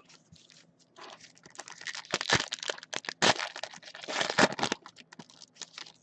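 Trading card pack wrappers being torn open and crinkled by hand, with a few sharp clicks of cards being handled; the rustling fades out near the end.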